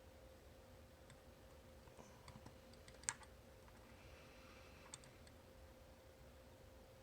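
Faint, scattered metallic clicks of a homemade pick working the rotating discs of an Abloy Classic disc-detainer cam lock, with one sharper click about three seconds in.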